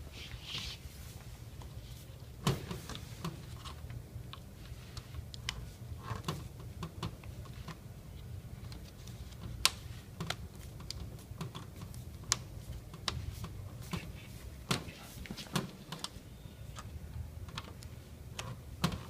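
Irregular light clicks and taps, a few sharper than the rest, over a steady low hum.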